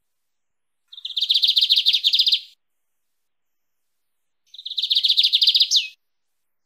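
Lined seedeater (bigodinho) singing its wild-type 'mateiro' song: two fast, high trilled phrases about two seconds apart, the second ending in a sharp sweeping note.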